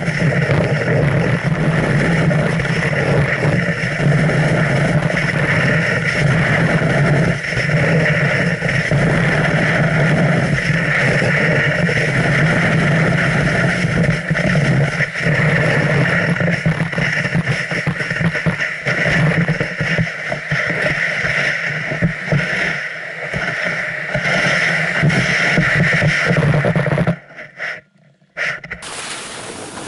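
Wind rushing over a body-worn camera's microphone as the rider moves down a ski slope, mixed with the hiss of sliding on snow; a steady, loud rush that cuts out suddenly near the end.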